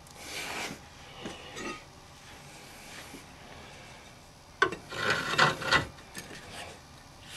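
Scraping and rubbing of tools and metal parts during work on the car's transfer case, with a sharp knock about four and a half seconds in followed by about a second of louder scraping.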